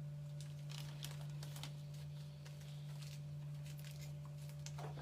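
A steady low hum with scattered faint clicks and rustles of ingredients and containers being handled.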